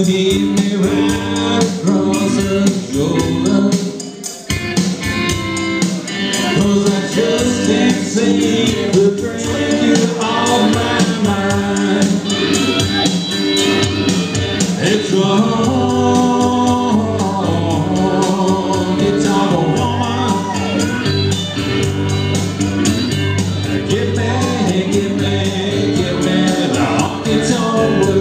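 A man singing into a handheld microphone over amplified backing music, heard through a PA system.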